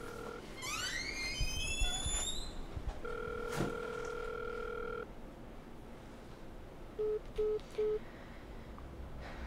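Telephone ringback heard through a phone earpiece: a steady two-second ring tone about three seconds in. Near the end come three short beeps at the same pitch as the call ends. Before the ring there is a run of rising, sweeping electronic tones.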